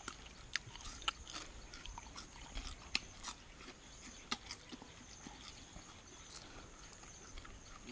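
A person chewing crisp cooked crickets: irregular, sharp crunches, most of them in the first half, fainter and sparser later.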